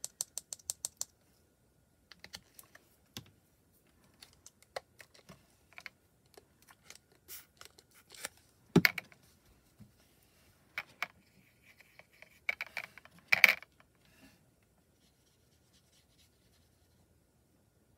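Light clicks and knocks of small plastic paint pots and a plastic mixing palette being handled on a glass craft mat. It opens with a quick run of light taps, about eight a second, and has two louder knocks about nine and thirteen seconds in.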